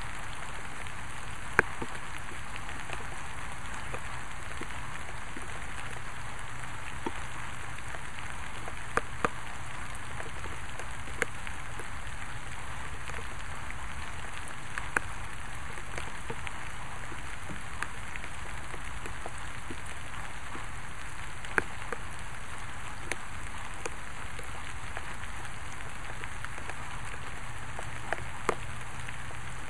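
Steady rain falling, an even patter, with about ten louder single drop taps scattered irregularly through it.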